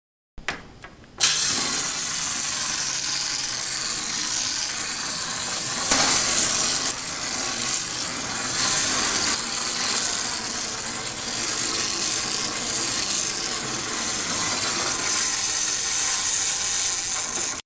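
Clockwork spring motor of a wind-up toy lobster whirring steadily as its gears drive it across a desk, starting about a second in.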